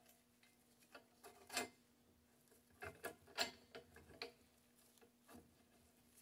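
Scattered light metal clicks and taps as steel parts of a belt grinder kit are handled and fitted onto the frame at a pivot bolt, the loudest about a second and a half in and again past three seconds. A faint steady hum runs underneath.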